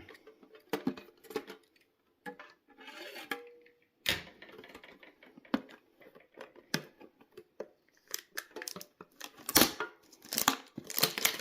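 A metal Pokémon card tin is opened and its contents handled: scattered clicks and knocks, with a brief metallic ring about three seconds in. Near the end comes a dense run of tearing and crinkling as a foil booster pack is ripped open.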